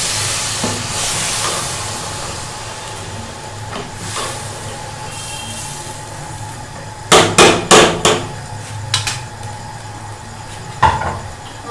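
Water hissing as it goes into the hot pot of frying masala and bitter gourds, fading over the first couple of seconds, over a steady low hum. About seven seconds in, a metal utensil or lid knocks sharply on the aluminium cooking pot four times in quick succession, then taps lightly a few times, with one more knock near the end.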